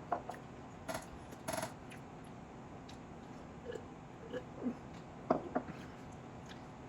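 Eating from a plate: a few brief clinks and scrapes in the first second and a half, then scattered soft mouth and chewing sounds.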